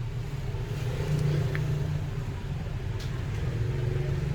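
A motor vehicle engine running steadily with a low rumble, with a faint click about three seconds in.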